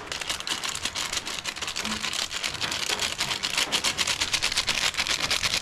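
Rapid, even scraping clicks, about eight to ten a second, of a utensil stirring dry cake mix of flour and drinking-chocolate powder in a bowl. The clicks grow stronger from about halfway through.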